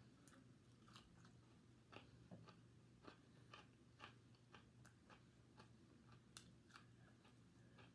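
Faint close-up eating sounds: chewing and mouth clicks, with irregular small clicks as pieces of fried meat are pulled apart by hand, over a low steady hum.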